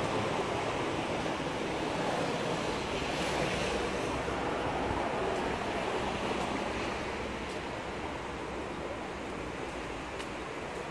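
Steady wash of road traffic noise from the street alongside. It swells about three to four seconds in and slowly eases toward the end.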